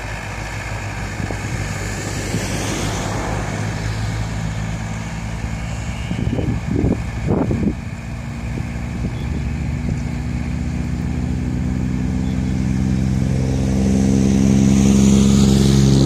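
Kubota tractor's diesel engine running steadily while pulling a rotary tiller through the soil, with a few brief louder sounds partway through. The sound grows louder over the last few seconds.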